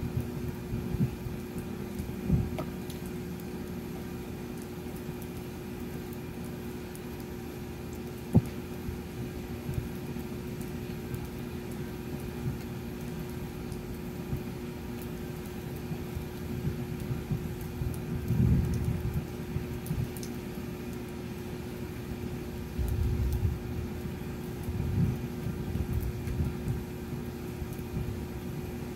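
Steady rain falling during a storm, with a low rumble swelling up a few times in the second half and a couple of sharp ticks early on.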